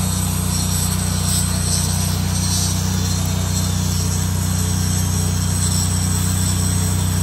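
Stick welding on steel: the continuous crackling hiss of the arc over the steady drone of a running engine.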